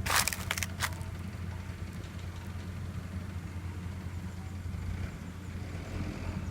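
Excavator's diesel engine running steadily with a low hum, with a few short crunching noises in the first second.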